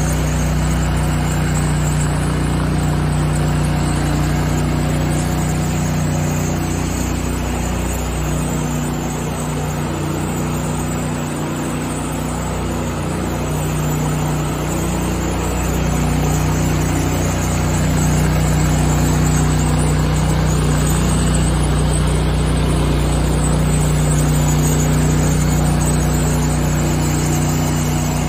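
Ride-on floor grinder running steadily as its heads grind a wet concrete floor: a continuous motor hum under a rough grinding noise. It eases a little near the middle and gets slightly louder again later on.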